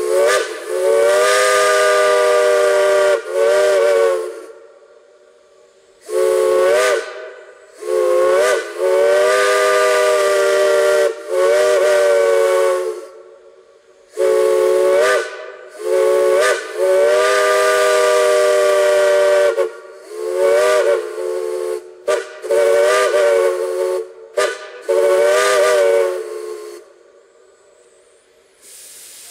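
A chime steam whistle blown in about a dozen long and short blasts, several notes sounding together as one chord. Each blast slurs up in pitch as the valve opens and sags as it closes, with a hiss of steam.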